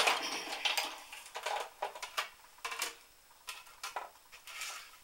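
Clicks and light clatter of the plastic cutting plates of a Big Shot die-cutting machine being handled, busiest in the first second, then light rustling as the die-cut cardstock is lifted off the metal thinlits die on its magnetic platform.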